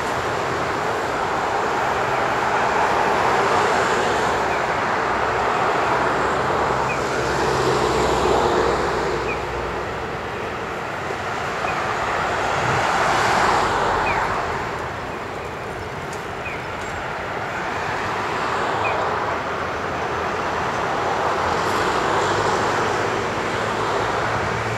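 Road traffic on a city street: a steady noise of cars going by, swelling and fading as vehicles pass every few seconds. Faint short high chirps repeat at an even pace throughout.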